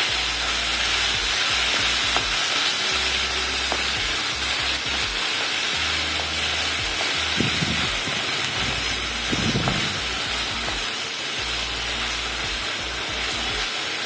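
Chopped onion, tomato and green peas sizzling steadily as they fry in a metal kadhai, stirred with a wooden spatula that scrapes the pan now and then.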